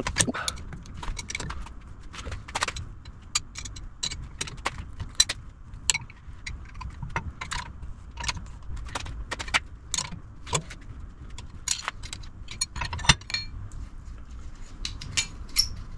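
Irregular metallic clinks and ticks of tools working a coilover strut's threaded spring collar as the spring preload is adjusted by hand.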